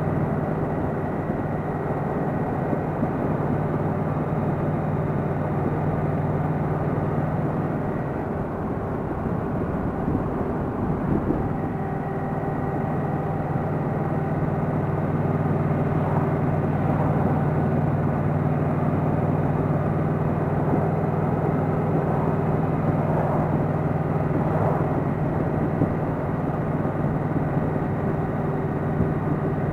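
Yamaha Venture touring motorcycle's engine running steadily at cruising speed through its stock mufflers, mixed with wind and road noise. The steady engine note breaks up briefly about eight seconds in, then settles back.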